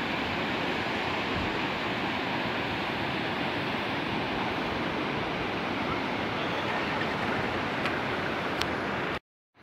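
The Kunhar River's whitewater rapids rushing steadily over rocks. The sound cuts off suddenly near the end.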